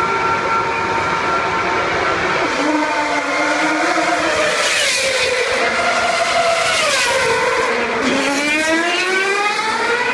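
Formula 1 cars' 2.4-litre V8 engines passing at speed, the high engine note dropping in pitch as cars go by about halfway through. Near the end one engine climbs steadily in pitch as it accelerates.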